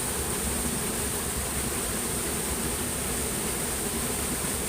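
Steady rushing of flowing stream water, even and unbroken, with a continuous high-pitched hiss or buzz above it.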